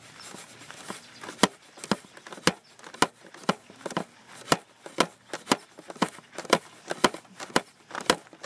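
Footsteps at a steady walking pace, about two a second, sharp and evenly spaced, starting about a second and a half in.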